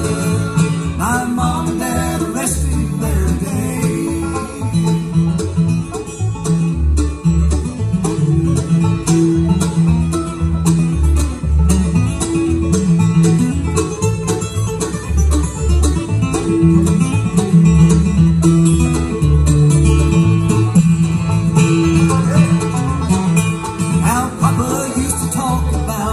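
Bluegrass band playing live: banjo, fiddle, acoustic guitar, mandolin and upright bass, with the bass keeping a steady beat under quick plucked banjo and guitar notes.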